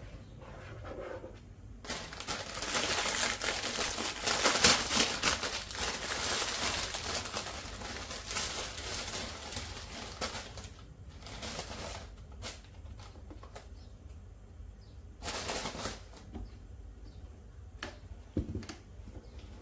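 Rustling and crinkling of cloths and sponge packaging being handled and set into a plastic storage organizer, with a few light knocks on the plastic. The rustling is long and dense for several seconds, then comes in shorter bursts.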